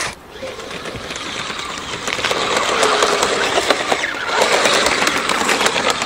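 Kyosho Blizzard RC snowcat's electric motor and track drive whirring with a fine rapid clatter as it crawls through snow. The sound swells from about two seconds in and dips briefly near four seconds.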